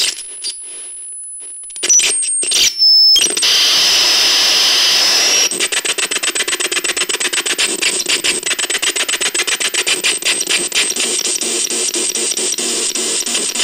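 Electronic radio-style sound effects: a few short high beeps and clicks, then a rush of static hiss about three seconds in, which from about five seconds in turns into a fast, even pulsing crackle.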